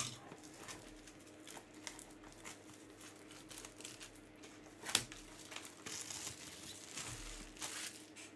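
Plastic shrink-wrap crinkling and tearing as it is peeled off a sealed box of trading cards: scattered crackles, a sharper snap about five seconds in, and a longer crinkle near the end.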